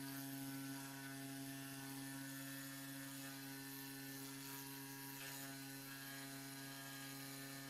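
Eleksmill desktop CNC router's spindle motor running with a faint, steady hum as a V-bit engraves copper-clad PCB board.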